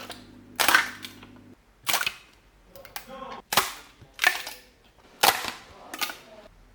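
A series of six sharp clacks or bangs, roughly one a second, each short and dying away quickly.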